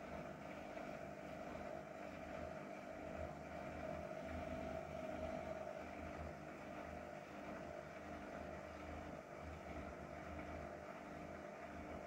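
Hotpoint Ariston AQ83D 29 front-loading washing machine running its 800 rpm spin: a steady motor hum over an uneven low rumble from the drum.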